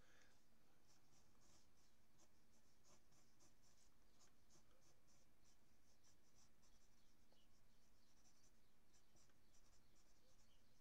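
Pencil scratching on paper in quick, short, faint strokes, several a second, as a drawing is sketched in.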